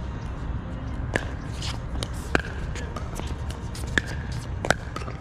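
Pickleball paddles striking a hard plastic pickleball in a rally: several sharp pops, roughly one a second, most with a brief ringing note after the hit, over a low steady rumble.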